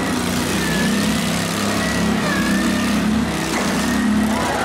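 Several small garden tractor and riding lawn mower engines running at once as the machines push against each other, with a wavering high whine over the engine noise.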